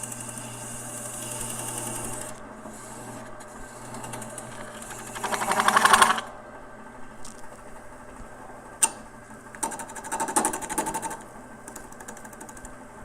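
Wood lathe running with a steady motor hum while a turning tool cuts into the spinning resin-and-wood bowl in short passes, each cut a rapid rhythmic chatter. The loudest cut comes about six seconds in, another around ten seconds, with a sharp click in between.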